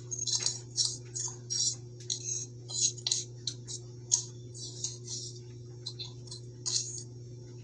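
A toddler handling stiff picture-book pages: a run of short, irregular, high-pitched clicks and rustles, about two or three a second, over a steady low hum.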